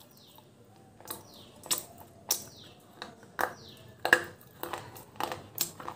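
Teeth biting into and crunching a dry, chalky piece of clay close to the microphone: a string of about eight sharp crunches. Birds chirp faintly in the background.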